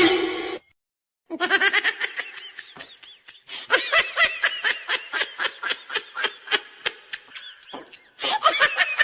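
A person laughing hard in long runs of rapid, high-pitched bursts, with a brief pause near the end.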